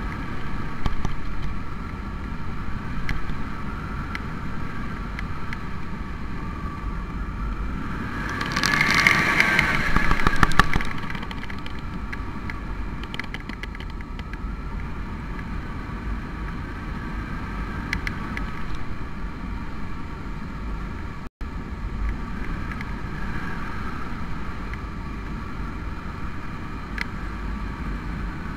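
Wind buffeting the microphone of a camera hung from a kite line: a steady low rumble, with a stronger gust about nine seconds in.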